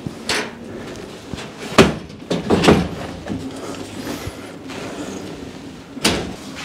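A series of wooden knocks and thumps from the wooden brooder box being handled and fitted. The loudest knock comes about two seconds in, a quick cluster follows, and another knock comes near the end.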